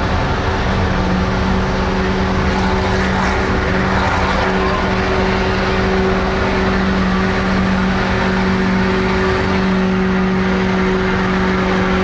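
Pulling truck's engine held wide open at one steady pitch as it drags the weight sled down the track.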